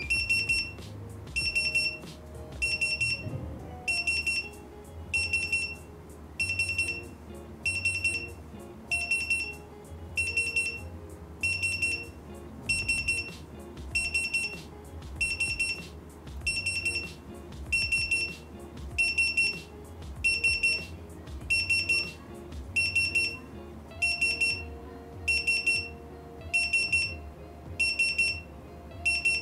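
Retekess TD157 restaurant guest pager beeping after being called: a short, high electronic beep repeating evenly about once a second.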